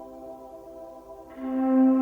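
Ambient background music with long held, sustained notes; a louder, lower note swells in about a second and a half in.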